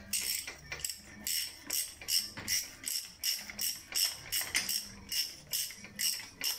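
Ratchet wrench clicking in a steady rhythm of short rattling runs, about three strokes a second, as it is worked back and forth to tighten the centrifugal oil filter nut on an AKT NKD motorcycle engine through a special socket.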